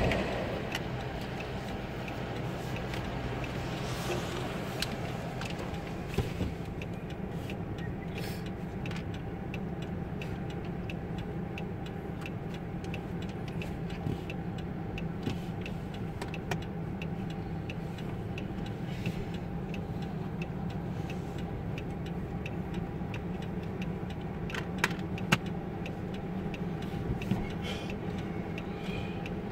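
Steady road noise of a car driving on a wet road, heard from inside the cabin, with scattered light ticks throughout and a few sharper clicks about three-quarters of the way through.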